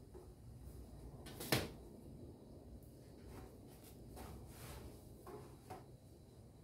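A sharp knock about a second and a half in, followed by several lighter knocks and clicks: household objects being handled, like a cupboard or drawer being opened and shut.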